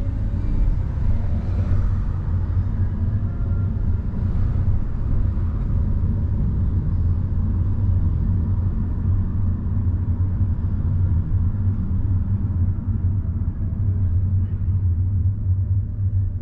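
Steady low rumble of a car driving slowly along a city street: engine and tyre noise, with little change in level.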